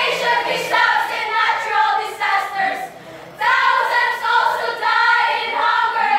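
A group of teenage boys and girls singing together in unison, in two long phrases with a short break about three seconds in.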